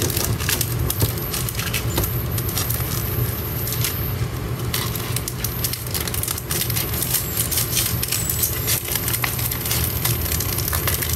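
Clear plastic sleeves and sticker sheets being handled and crinkled, a continuous run of small irregular crackles, over a steady low hum.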